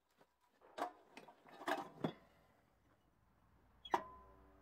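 Knocks and clatter as an old Salter cast-iron spring-balance scale is handled and set down on gravel. Near the end comes one sharp metallic knock that leaves a ringing tone.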